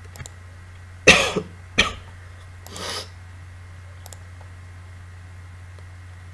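A man coughing twice, about a second in, then a softer throat-clearing sound, over a steady low hum.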